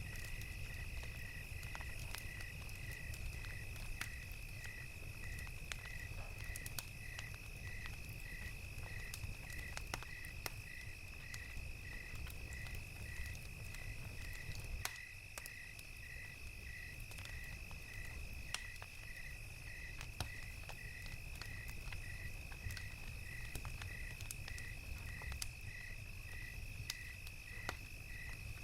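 Crickets chirping: a steady high trill with a second, evenly pulsed chirp repeating a little faster than once a second. Scattered pops and crackles from a wood fire and a low rumble lie under it, the rumble easing about halfway through.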